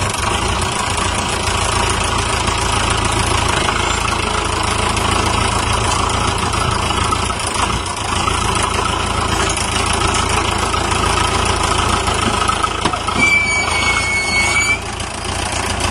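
Tractor engine running steadily under load as the tractor, with a log chained across its rear wheel for grip, pulls itself out of deep mud. A brief high whistle-like tone sounds near the end.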